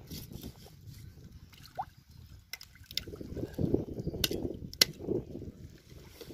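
A large machete-style knife chopping through a sailfish's body on a wooden plank: four sharp knocks between about two and a half and five seconds in, over the wet sound of the cut and shallow water.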